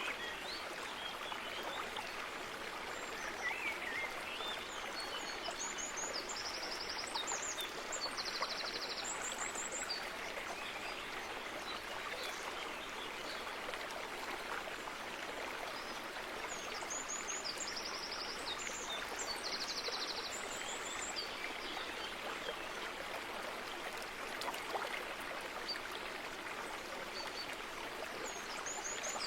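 Steady rushing of running water, like a stream. Over it a small bird sings a short, high phrase of quick repeated notes three times, about every twelve seconds.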